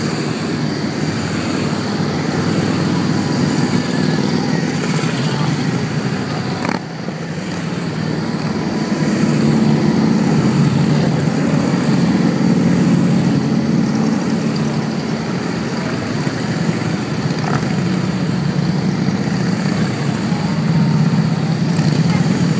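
A long column of cruiser and touring motorcycles, Harley-Davidsons among them, riding past one after another, their engines running steadily and swelling a little as each group goes by.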